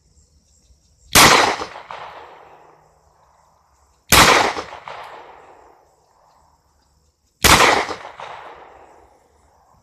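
Three pistol shots from a Smith & Wesson M&P Shield, about three seconds apart, each followed by an echo that dies away over a second or two.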